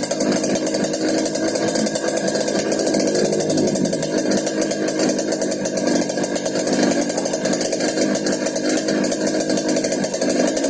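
Yamaha RX-King's single-cylinder two-stroke engine running steadily through a 'ngorok' exhaust, giving a growling, snoring two-stroke note.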